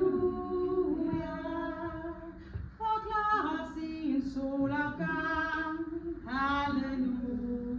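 A woman singing a Danish hymn a cappella, in long held notes.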